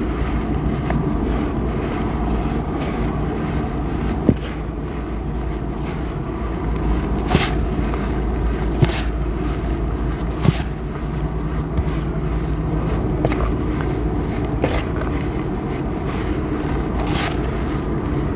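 Dry powdered cement being squeezed, crumbled and sifted through bare hands: a continuous gritty hiss of falling powder with many small crackles and a few sharper crunches of clumps breaking apart.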